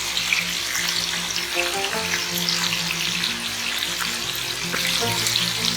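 Chicken pieces in a mint-coriander marinade sizzling and crackling in hot oil over high heat, a steady frying hiss with scattered pops, under soft background music.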